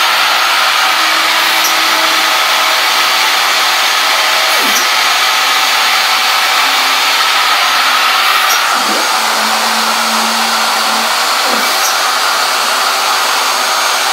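Shapeoko CNC router's stepper motors whining in steady tones as the gantry traverses during a dry run. The tones dip and rise again each time the axes slow and reverse, about every three to four seconds. Under it runs a loud, steady whir from another machine running nearby.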